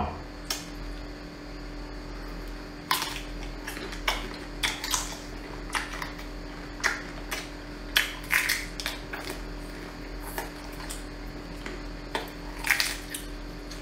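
Close-up eating sounds of whole cooked shrimp being bitten and chewed: irregular sharp crunches and crackles, about a dozen, over a steady low hum.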